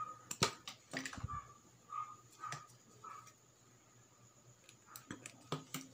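Faint clicks and taps of small-parts handling: a screwdriver working at a wire lead and its plastic connector. A few clicks come in the first second and a couple more near the end.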